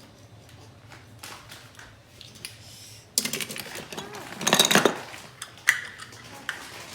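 Kitchen utensils and dishes clattering. There are light clicks at first, then a sudden rattle about three seconds in, loudest at about four and a half seconds, and one sharp clink near the end.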